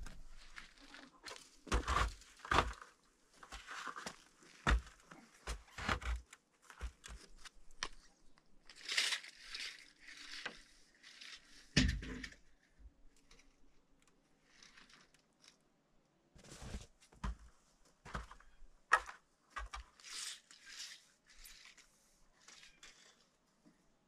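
Scattered knocks and thumps of tools and wood on timber roof rafters, with bursts of scraping and rustling in between.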